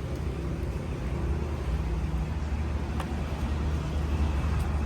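A steady low engine rumble, with a faint click about three seconds in.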